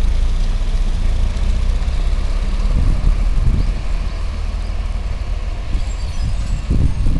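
A city bus's engine running as the bus pulls out and drives away. Its steady low hum loosens into a rougher, fluctuating rumble after about three seconds as the bus moves off.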